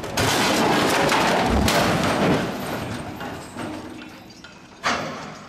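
A crane's steel wire rope snapping and a roughly 200-tonne steel load crashing down. A sudden loud crash begins just after the start, with a deep thud about a second and a half in and a noisy clatter dying away over a few seconds. A single sharp knock comes near the end.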